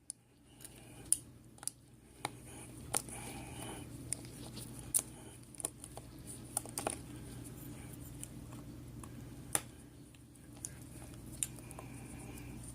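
Scattered light clicks and scraping of small metal parts being handled, typical of lock-picking tools and a pin-tumbler lock being worked, over a faint steady hum.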